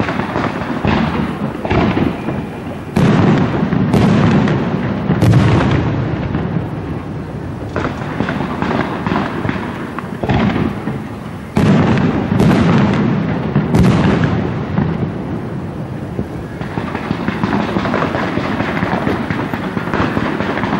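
Fireworks display: a rapid run of bangs and booms, heaviest a few seconds in and again just past the middle. In the last few seconds it turns to a denser, more even crackling.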